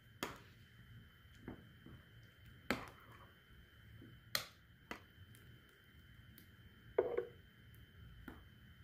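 Metal spoon stirring blended salsa in a glass bowl, with scattered light clinks of the spoon against the glass, a louder couple about seven seconds in.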